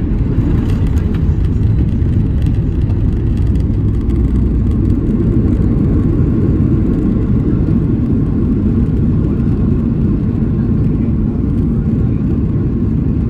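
Loud, steady low rumble in the cabin of a Boeing 737-900 during its landing rollout just after touchdown, the wheels running down the runway with the spoilers up, a little heavier in the first few seconds.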